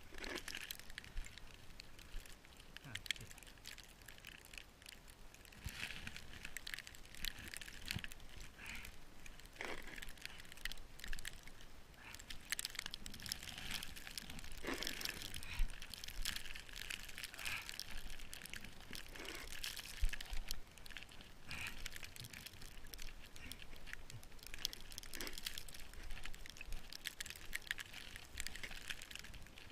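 Snow crunching and scraping in an irregular run of short strokes, with a few sharper knocks scattered through.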